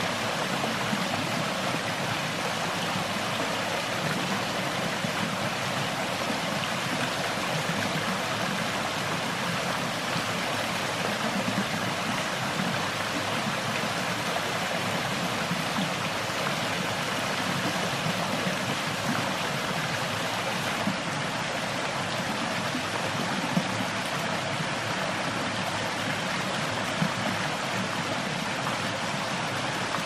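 Shallow rainforest stream running over rocks and a small cascade: a steady rush of water, with two brief clicks in the second half.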